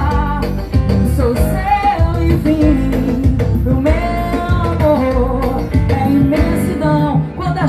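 A song with a singer's voice over guitar, bass and drums, in a Latin style.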